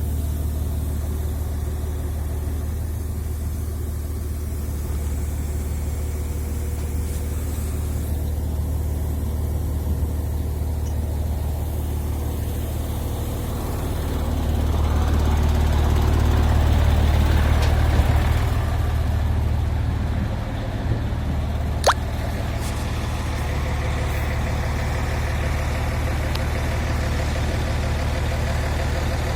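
A diesel engine running steadily with a low hum, rising in level for about four seconds past the middle before settling back, with a single sharp knock a few seconds after that.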